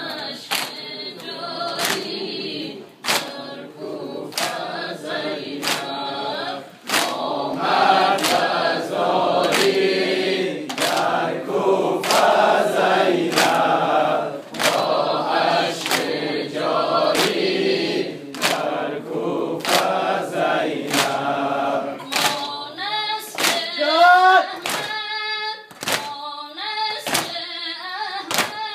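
Mourners singing a Persian noha refrain in chorus while beating their chests in unison (sineh-zani), sharp slaps about once a second keeping the beat. Near the end a single amplified voice sings a rising line over the continuing slaps.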